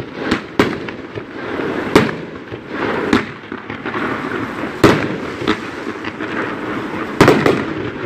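Fireworks going off: a string of about eight irregularly spaced sharp bangs, with crackling and rumbling in between.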